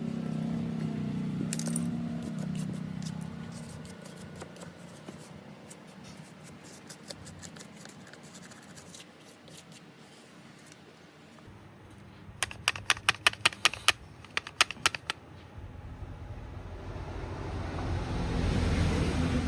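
Small hard objects clicking against each other, likely metal tools and phone parts handled on a workbench: scattered light ticks, then a quick run of about ten sharp clicks past the middle. A low hum is there at the start, and a rising whoosh builds near the end.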